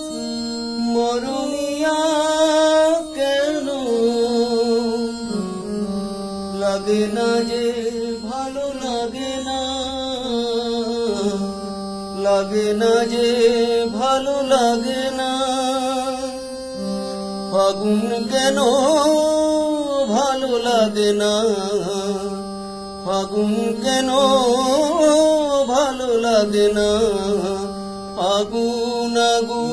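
A man singing a slow, melodic song, with long held notes that glide up and down in pitch.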